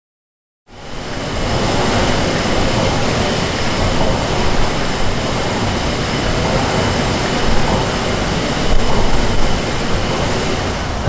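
Ellenroad Mill's steam mill engine running: a steady mechanical rumble with hiss, fading in just under a second in.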